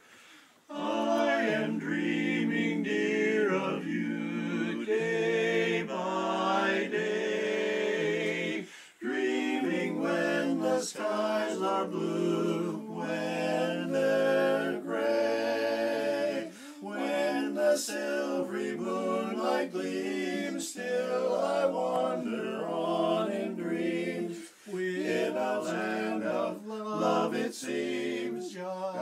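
Barbershop quartet of men singing a cappella in close four-part harmony, in phrases with brief pauses between them.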